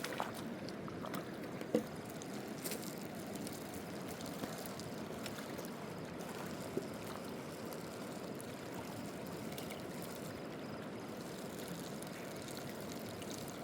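Steady rush of flowing river water, with a few faint knocks in the first few seconds.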